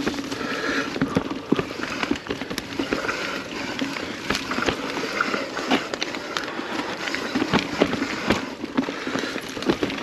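Mountain bike, a Kona Process X, descending a rough trail: the tyres roll over dirt, roots and rocks under a steady rushing noise, while the chain and frame rattle in a string of sharp knocks.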